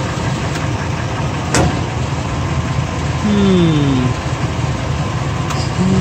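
Pickup truck engine idling, heard from under the truck, with one sharp clunk from the driveline about one and a half seconds in as the transmission is shifted into drive: the clunk of a worn universal joint on the drive shaft.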